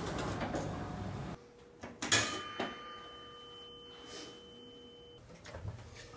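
An elevator arrival chime: a single bell-like ding about two seconds in that rings on for about three seconds and then stops abruptly. Before it there is a steady background rush.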